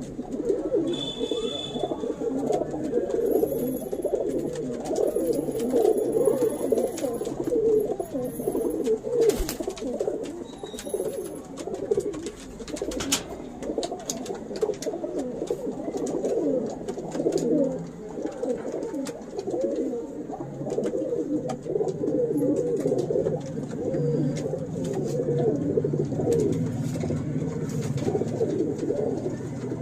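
Domestic pigeons cooing continuously, the wavering calls running into one another, with a couple of brief high chirps and a few sharp clicks.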